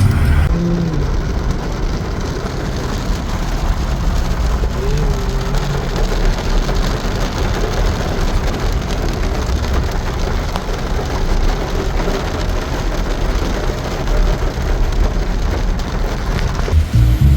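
Steady rain falling hard onto a surface, with a low rumble underneath.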